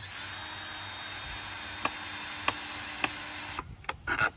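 Cordless drill running steadily, with a few sharp clicks, then stopping suddenly about three and a half seconds in; a few short clicks and knocks follow.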